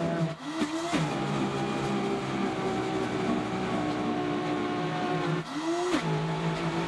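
Cleanblend 1800-watt commercial blender running at high speed on a thick frozen avocado mixture, a steady motor whine over churning. Its pitch sags and climbs back twice, about half a second in and again near the end, as the motor bogs under the thick load and recovers.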